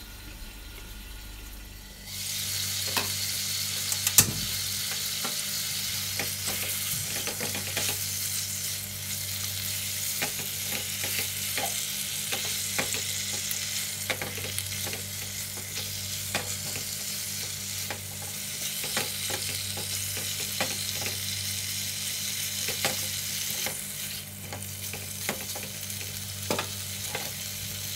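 Chicken wings sizzling in a nonstick pan, braised until half cooked, while a slotted spatula stirs them with frequent scraping clicks against the pan. The sizzling starts about two seconds in, and a sharp clack of the spatula comes about four seconds in.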